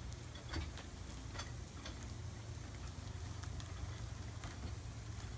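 Scattered light clicks and taps from a wheeled metal hardtop hoist as a Jeep Wrangler hardtop is lifted and moved on it, over a steady low hum.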